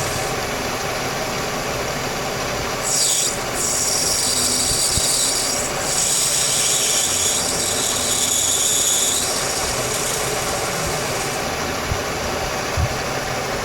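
CNC-converted Bridgeport milling machine running steadily, its spindle turning brass stock against a lathe tool clamped in the vise. A high hiss comes and goes over the machine noise, strongest from about three to nine seconds in.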